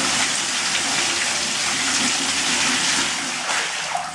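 A strong jet of water from an Interdab GV180 submersible electric pump gushing out of a 1-inch hose and splashing against a wall, a steady hiss. About three and a half seconds in, the flow dies away.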